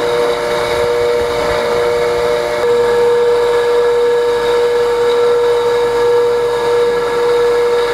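Motor of a fused clapton coil-winding machine running, with a steady whine, as it wraps fine 38 AWG wire around the core wire. The whine grows a little stronger about a third of the way in.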